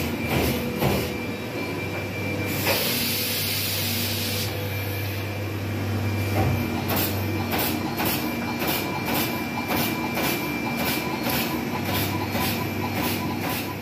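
Workshop machinery running: a steady hum with a high whine, a hiss of air about three seconds in lasting under two seconds, and regular ticks about twice a second in the second half.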